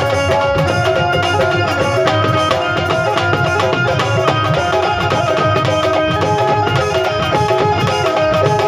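Live Punjabi folk devotional music: tabla drumming under held melodic tones.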